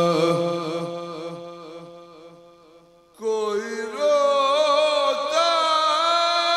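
Devotional singing: a held note over a steady drone fades away over about three seconds. Then a man's voice comes in on the microphone, singing a sliding, ornamented melodic line.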